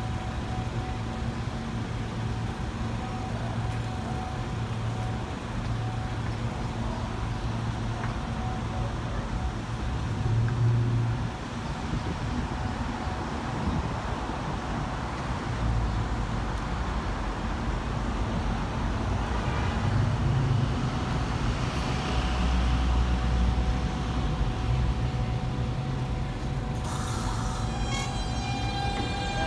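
Elevated subway station ambience: a steady low rumble of trains and traffic on the tracks and street around the platform. Near the end a New York City subway train on the adjacent track comes in with a whine of several steady tones over the wheel noise.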